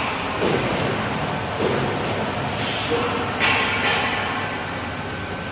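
Steady factory machinery noise from a pipe-hardening line, with four or five brief louder hissing surges about a second apart.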